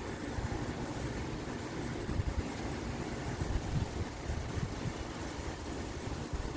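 Uneven low rumble of outdoor background noise, with a few short louder bumps about two seconds in and again a little past three and a half seconds.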